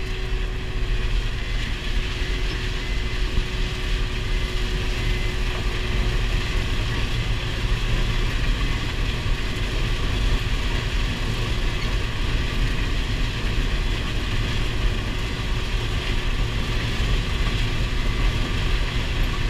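New Holland TR70 combine running steadily while harvesting corn: engine and threshing machinery under load, an even mechanical drone. A faint steady whine fades out about six seconds in.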